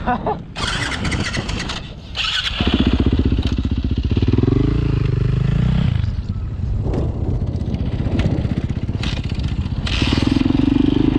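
A four-stroke single-cylinder Yamaha dirt bike engine starts about two and a half seconds in. It revs up and down briefly, then runs at a steady idle, and revs up again near the end. A second or two of rustling noise comes before it.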